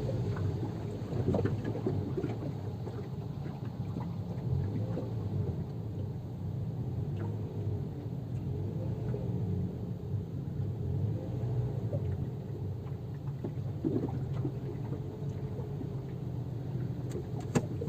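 Car engine running with a steady low rumble while the car pushes slowly through floodwater, heard from inside the cabin. A sharp click comes near the end.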